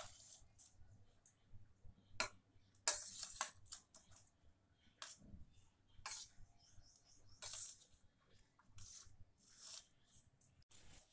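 Metal spatula scraping and knocking against a steel pan while stirring fried rice: short, irregular scrapes and clicks, a second or so apart.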